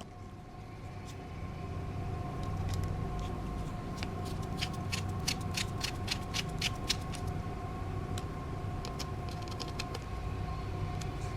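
Small sharp clicks and taps of tools and tiny phone parts being handled during reassembly, in clusters about four to seven seconds in and again near the end, over a steady background hum.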